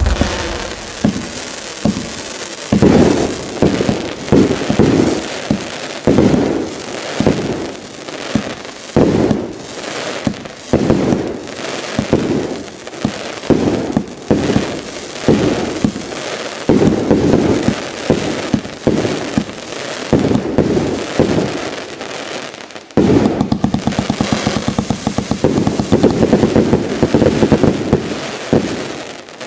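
Wolff 6540 Jackhammer firework compound firing: a steady series of shots bursting with crackle, then about 23 seconds in a sudden dense rapid-fire barrage of many quick bangs, the finale of the cake.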